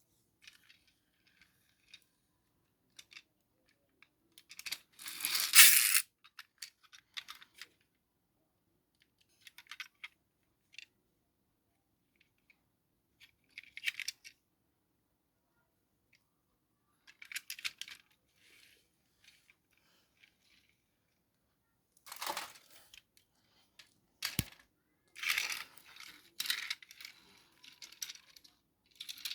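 Scattered clicks, rattles and rustling of small hard objects being handled, with quiet gaps between; the loudest rustle comes about five seconds in, and another run of clicks and knocks near the end.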